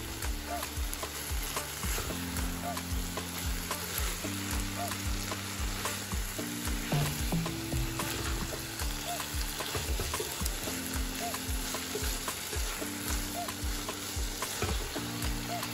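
Amaranth greens sizzling in a pot while a wooden spoon stirs them, over Afrobeat background music with a steady beat and a bass line.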